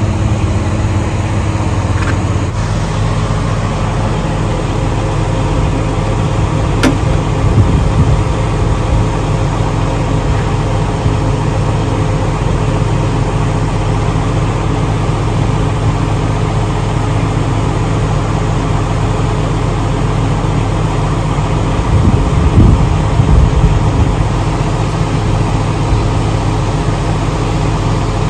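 Steady low drone of idling diesel semi-truck engines. A higher hum drops out about two and a half seconds in, and there is one light click about seven seconds in.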